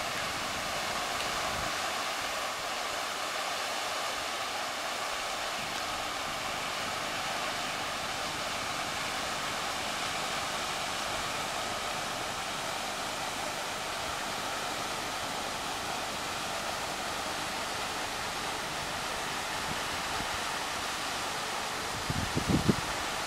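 Water spilling down a stone pillar into an ornamental pond, a steady splashing rush. A few low thumps come near the end.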